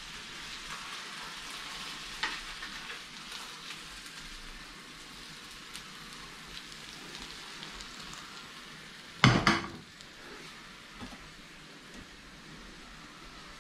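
Bass fillets sizzling in butter in a frying pan, with small clicks and scrapes of a spatula as the fish is lifted out onto plates. A loud knock comes about nine seconds in.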